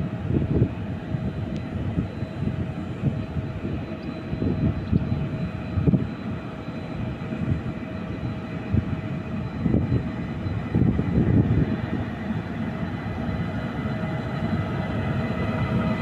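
Electric train running, with a steady rumble and a constant whine above it that grows louder near the end as the train comes closer.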